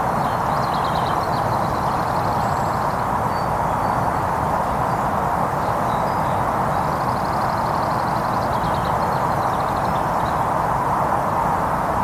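Steady noise of heavy motorway traffic, with a faint, high trilling of small songbirds over it a few times.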